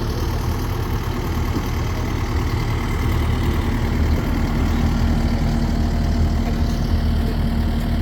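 An engine running steadily at idle, with a steady hum joining about three seconds in.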